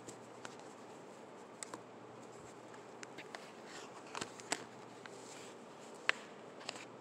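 Scattered light clicks and taps of a phone and a folder being handled close to the microphone, over a steady room hiss; the sharpest click comes about six seconds in.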